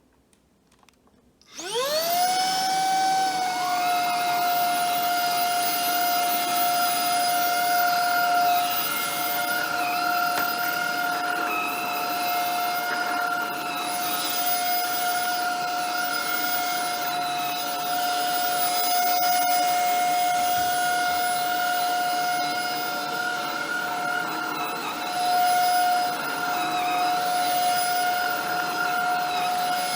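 Shark Ion F80 cordless vacuum switched on: its motor spins up with a quick rising whine about a second and a half in, then runs at a steady high whine, with a brief louder stretch near the end.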